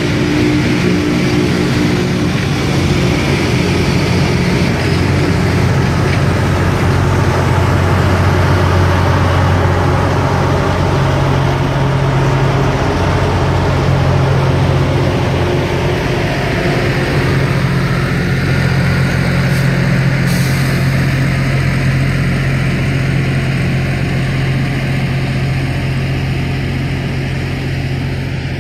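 Rail grinder train passing: its diesel engines drone steadily under a harsh grinding hiss from the stones working the rail. The hiss thins out in the second half while the engine drone carries on, a little quieter near the end.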